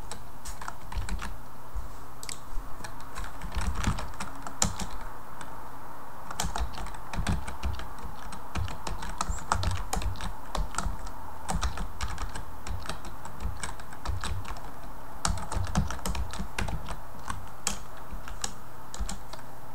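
Computer keyboard being typed on: quick, irregular runs of keystrokes with short pauses between them, over a steady background hum.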